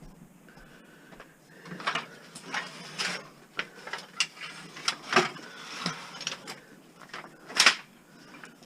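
Irregular knocks and clatter of scrap being handled and shifted, a dozen or so hits, with the loudest bang near the end.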